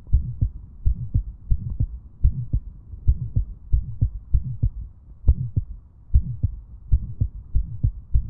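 Auscultation recording of heart sounds with a regular lub-dub beat and an innocent Still's murmur between them. The murmur is a mid-systolic, vibratory murmur that sounds like a hum.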